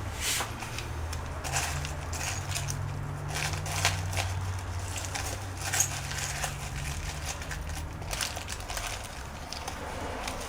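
Irregular clicks and rustles of small parts and tools being handled on a workbench, over a low steady hum.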